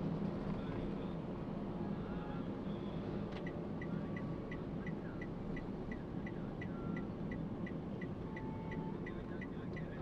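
Inside a Toyota Calya, a steady low rumble of engine and road noise. A few seconds in, the indicator starts ticking evenly, about three ticks a second.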